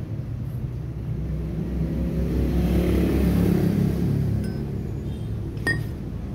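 A motor vehicle's engine running close by, its rumble swelling in the middle and fading again, with a single sharp click near the end.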